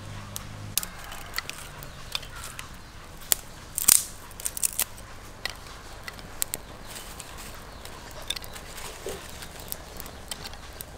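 Dry twigs and kindling cracking and snapping as a small wood fire is fed and catches: irregular sharp cracks, with a louder cluster about four seconds in.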